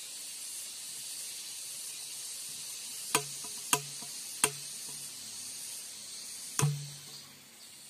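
Four sharp clicks from the gas-lighter igniter of a homemade milk-can lodong (spirit-fuelled can cannon), the first three about half a second apart and the last about two seconds later, each followed by a brief low ring from the tube: the cannon is failing to fire. A steady high insect buzz runs underneath.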